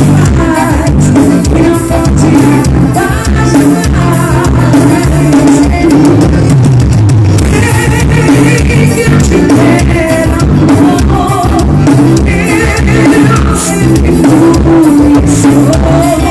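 Forró song with singing over a pounding drum and bass beat, played very loud through a car sound system.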